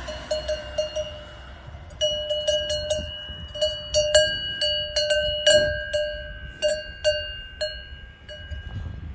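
Cowbell on a walking cow clanking unevenly, a few ringing strikes a second, with a short lull about a second in.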